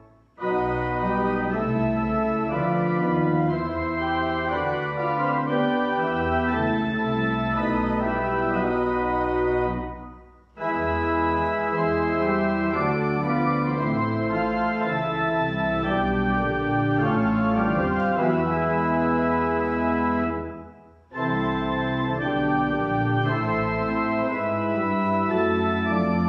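Church organ playing slow sustained chords over a bass line, in phrases that each end with a brief break, about 10 s in and again about 21 s in.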